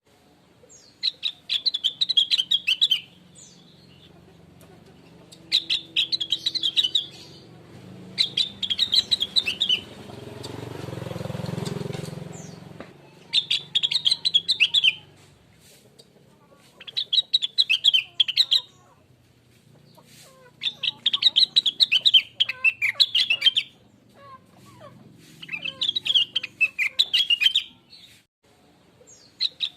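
Rengganis (cucak wilis) leafbird singing in repeated phrases of rapid, high chirping twitters, each about two seconds long, with short pauses between them. In the middle a low rushing noise swells and fades.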